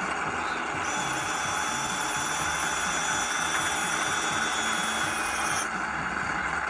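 A small electric motor or servo whines thinly for about five seconds, starting about a second in and cutting off suddenly, as the dozer blade of a model Sherman tank lifts. Under it the model's engine-sound effect keeps up a steady idling hum.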